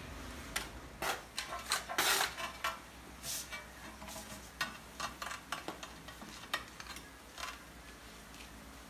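Hand trowel scraping and clinking against the back of a ceramic tile as grey mortar is spread on it, in a run of short, irregular strokes, the loudest about two seconds in.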